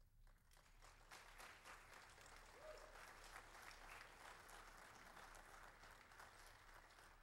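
Congregation applauding faintly, many hands clapping. The clapping builds up about a second in and carries on steadily.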